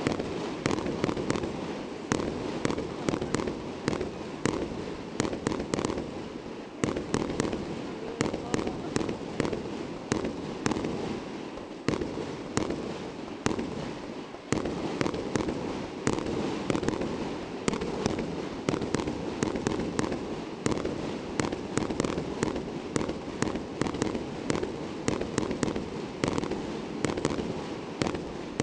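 Aerial fireworks bursting close overhead in a rapid, unbroken barrage: sharp bangs follow one another several times a second over a continuous crackle.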